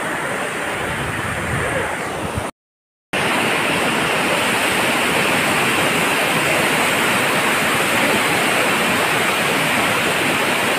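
Mountain stream rushing and cascading over rocks in small waterfalls, a steady white-water rush. The sound drops out completely for about half a second around two and a half seconds in, then comes back a little louder.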